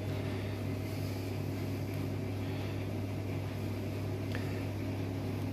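Steady low hum of running kitchen machinery, with an even airy hiss over it.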